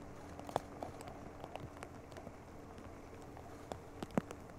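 Outdoor site ambience: a faint steady hum with scattered short clicks and knocks, the sharpest about four seconds in.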